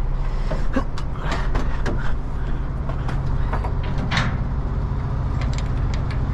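Roll-off bin truck's engine running steadily with a low hum, under a scatter of sharp metal clanks and rattles.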